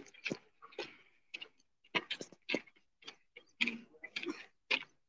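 Boots of a squad of marching cadets striking the ground in step, a quiet even beat of about two footfalls a second.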